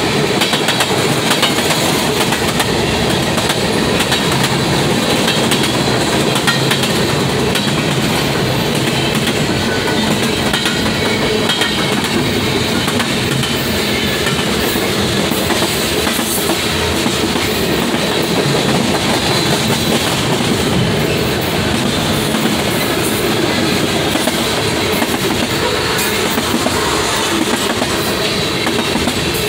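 Freight train of tank cars and covered hoppers rolling past close by: a steady, loud noise of steel wheels running on the rails.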